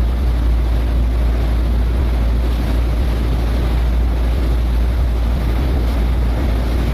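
A motor yacht's twin 1050-horsepower inboard diesel engines running steadily under power, heard from the stern as a deep, even rumble, with the rush of the churning propeller wash and wind on the microphone.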